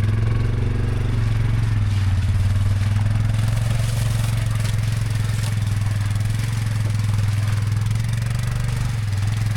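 Quad (ATV) engine running at a steady speed with a constant low hum, loud and close.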